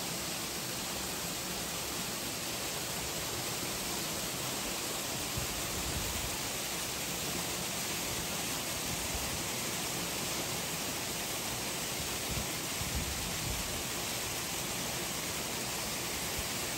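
Steady, even hiss of ambient noise with no distinct events.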